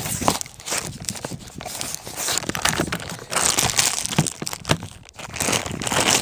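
Clear plastic bag crinkling and rustling as it is handled, in irregular crackles that come and go.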